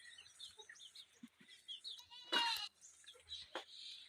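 A short, wavering animal call, like a bleat, about two and a half seconds in, over faint high chirps and soft background sounds.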